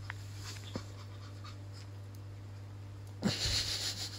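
Puppy tussling with a plush toy on a tile floor: a few faint clicks over a steady low hum, then about three seconds in, a second-long burst of rustling with a soft thump.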